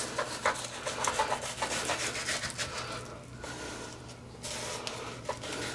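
Knife scraping and slicing a fish fillet away from its skin on a plastic cutting board, in a run of short strokes with a brief quieter pause a little past halfway.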